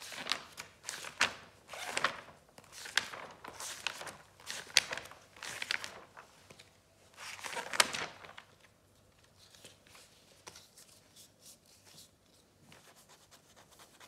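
Paper rustling and crinkling as a sticker is handled and the pages of a Panini sticker album are leafed through, in a run of short bursts with a louder page turn about eight seconds in. After that only faint light touches, as a sticker is pressed onto the page.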